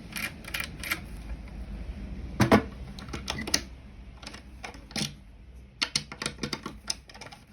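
Irregular metallic clicks and a few louder knocks as a newly cut key works the writing desk's cupboard lock and the desk is handled, the lock turning freely.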